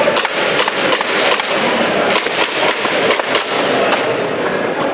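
Airsoft pistol firing a series of sharp shots in quick groups, over a steady background of hall noise.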